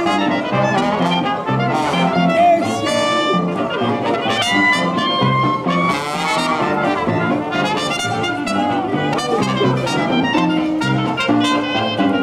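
A small live jazz band playing an up-tempo instrumental, with trumpet and trombone lines over an upright bass and piano.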